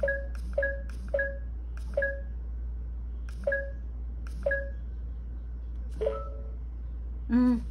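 Eilik desktop robot giving short two-note electronic beeps, each starting with a click, as its menu is tapped through: about seven beeps at uneven intervals, the last one lower in pitch. A louder short warbling sound comes near the end.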